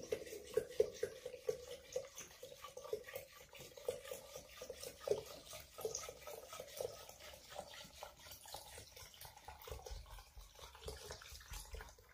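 Liquor glugging out of an upturned plastic jug into a glass jar, in quick irregular gurgles that grow sparser and fainter in the second half.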